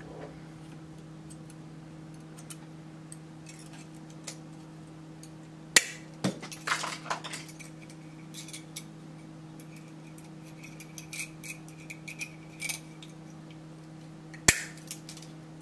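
Scattered light clicks and clinks of bent wire and small metal tools being handled on a wooden desk, with a sharp knock about six seconds in, a quick run of clicks right after it, and another sharp knock near the end. A steady low electrical hum runs underneath.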